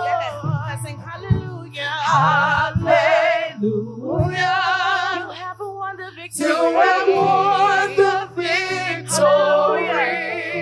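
Gospel worship music: a singer holding long, wavering notes over a sustained low instrumental accompaniment.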